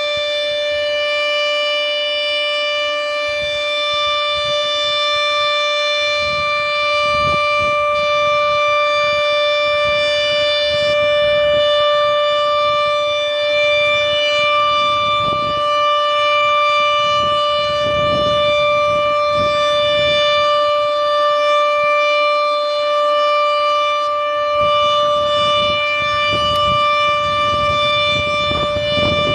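Dam discharge warning siren sounding one steady, held tone with strong overtones, neither rising nor falling. Low rumbling noise comes and goes beneath it from about six seconds in.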